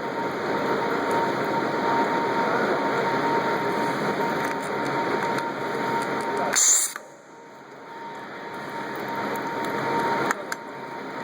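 Stud welding gun firing once, a short sharp crack about six and a half seconds in. Before it there is a steady hum and hiss with a thin whine. At the shot the hum and whine cut off, and the hum slowly builds back afterwards.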